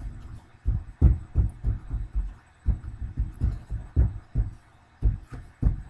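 A run of dull, irregular thumps and knocks, about a dozen over several seconds, from hands working craft supplies against the tabletop.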